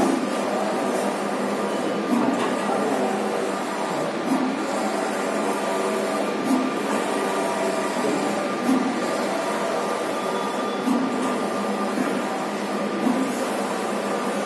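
Allwin wide-format flex printer with Konica 512 printheads running a print job: the printhead carriage shuttles back and forth across the media with a steady whir. A short louder bump comes about every two seconds.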